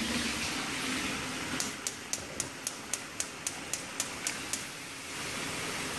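Gas stove burner's igniter clicking about four times a second for about three seconds, over the steady sizzle of potatoes deep-frying in oil.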